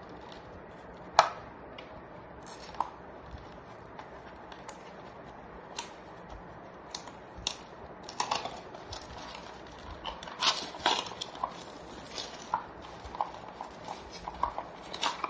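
Clear plastic shrink-wrap on a small cardboard earphone box being crinkled and torn off by hand, with irregular crackles and clicks that come thickest around the middle.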